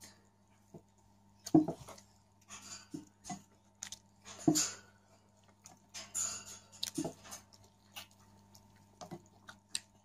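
Eating sounds of a person eating boiled artichoke: irregular short clicks and brief chewing and mouth noises, the two loudest about a second and a half and four and a half seconds in. A faint steady electrical hum runs underneath.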